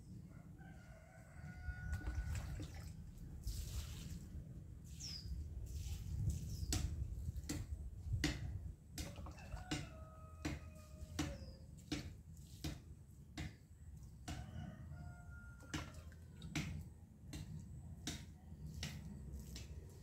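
A rooster crowing three times, once near the start, once about halfway and once about three quarters through. From about a third of the way in, a steady run of sharp ticks goes on, a little more than one a second.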